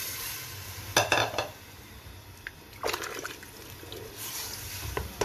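Water poured from a glass into a pressure cooker full of sautéed bottle gourd and masala, splashing, with a few sharp clinks about a second in and again near three seconds.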